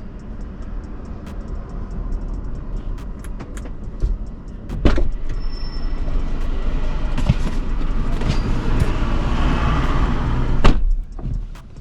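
A car engine idling with a steady low rumble while a passenger climbs in. Car door clunks, a sharp one about five seconds in and the loudest shortly before the end, among small clicks and rustles of handling.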